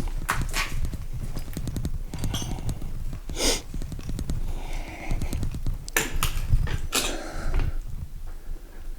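Footsteps on a floor: irregular clicks and scuffs, with a few sharper crunching steps near the middle and later on, over a steady low rumble.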